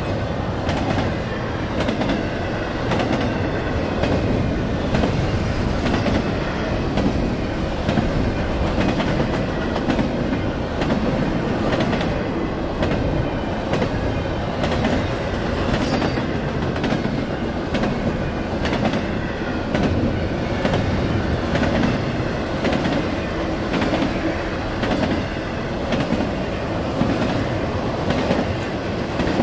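Freight train cars rolling past at speed, steel wheels clicking steadily over the rail joints with a constant rumble underneath.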